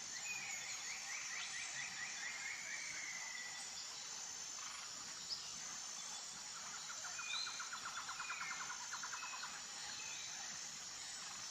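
Faint outdoor ambience of small birds chirping, with two stretches of rapid trilling, over a steady high-pitched hum.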